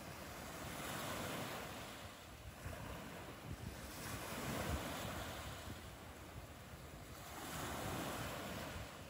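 Small sea waves breaking and washing up the beach, swelling and fading three times, about every three to four seconds.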